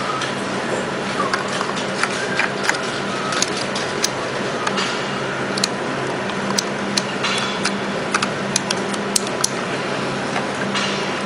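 Scattered small plastic clicks and taps as an SD card is pushed into a camcorder's card slot and the slot's plastic cover is snapped shut, over a steady hiss with a faint low hum.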